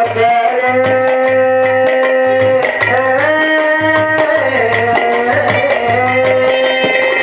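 Devotional music: tabla playing a steady rhythm under a slow melody of long held notes that glide between pitches, with a constant high drone tone.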